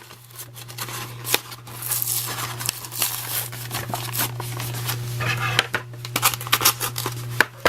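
Product packaging being worked open by hand: irregular crinkling, tearing and sharp clicks of plastic and cardboard, over a steady low hum.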